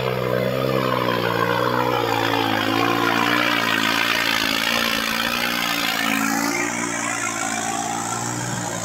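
New Holland 3630 tractor's diesel engine running hard under heavy load, labouring steadily as it drags a weighted pulling sled through loose soil, with a dense scraping hiss of dirt over the engine note.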